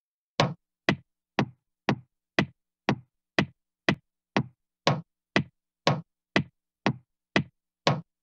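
Steady ticking: short, sharp, evenly spaced ticks, about two a second, with dead silence between them.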